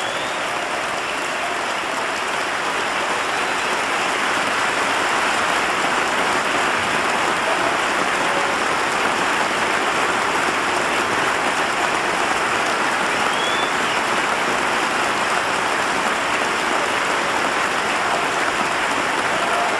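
A large crowd applauding steadily, a dense unbroken sound of many hands clapping at once.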